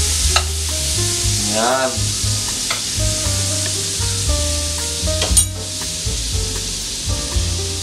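Margarine melting and sizzling in a hot wok, stirred with a spoon at first. The sizzle is strongest at the start and eases off, with a single sharp clink about five seconds in.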